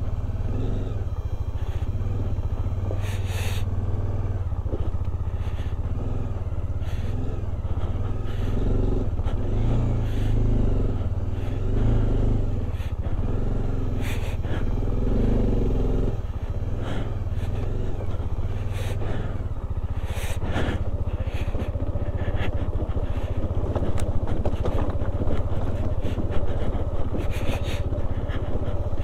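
Bajaj Dominar 400's single-cylinder engine running steadily as the motorcycle rides slowly over a loose, rocky track, with frequent knocks and rattles from stones under the tyres and the jolting bike. The knocks come more often in the last few seconds.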